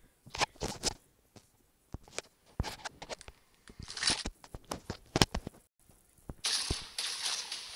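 Irregular taps, knocks and rustles of a phone being handled and its touchscreen tapped close to its microphone. About six and a half seconds in, a louder steady rushing noise sets in.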